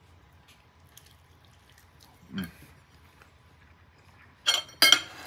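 A metal fork clinking twice against a ceramic dinner plate near the end, after a mostly quiet stretch.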